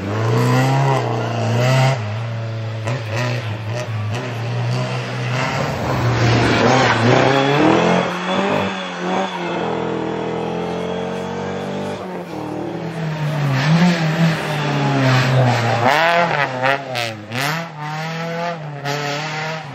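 Rally car engine revving hard, its pitch climbing and dropping again and again as it shifts gears and lifts off. A quick run of sharp cracks comes near the end.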